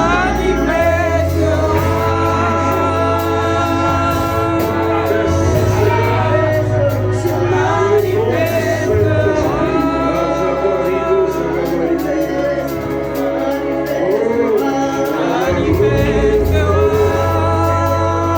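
Gospel worship music: singing over long held chords, with a bass note that shifts every few seconds.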